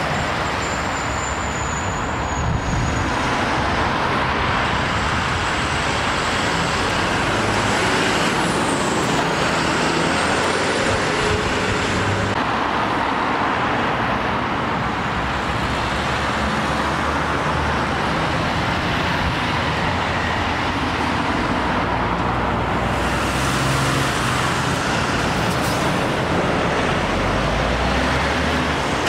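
Steady road traffic of cars, a van and diesel lorries passing. Near the end a DAF tanker lorry's diesel engine comes close and grows louder.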